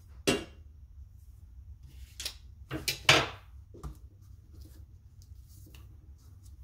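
Handling noises as a ruler is lifted off the work surface and set aside: a sharp knock about a third of a second in, then a short run of clatters and scrapes, loudest around three seconds in.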